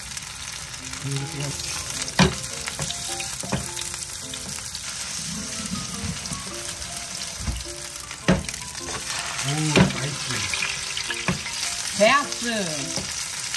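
Green onion pancake batter sizzling as it fries in oil in a nonstick pan, a steady hiss, with a few sharp clicks as the chopsticks and spatula touch the pan. Soft background music runs underneath.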